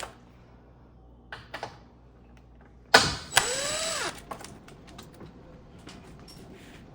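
Cordless driver with a T20 Torx bit backing out a door screw: about 3 s in it whirs for about a second, its pitch rising and then falling as the motor speeds up and slows. Light clicks and taps of handling the screws and tool come before and after.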